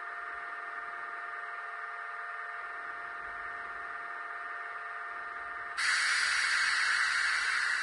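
Sound of a standing N-gauge model of the SNCF BB 22241 electric locomotive played through its small speaker: a steady electrical hum with a few held whining tones, then about six seconds in a sudden, much louder hiss like compressed air being let out.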